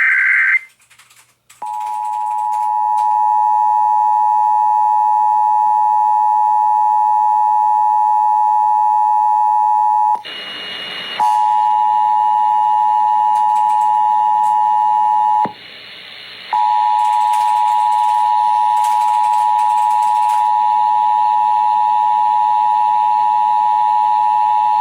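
Emergency Alert System broadcast test. A SAME digital header burst (the data 'burp') ends at the start. About a second later the steady two-tone EAS attention signal (853 and 960 Hz) comes in. The tone swells over its first couple of seconds, then twice drops out for about a second into hiss before resuming.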